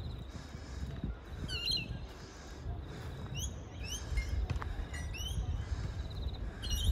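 Birds calling in short, rising chirps every second or so, over a low steady rumble.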